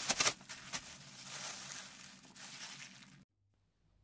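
Plastic bag crinkling as cooked rice is shaken and squeezed inside it. A few sharp crackles come right at the start, then softer rustling that stops abruptly about three seconds in.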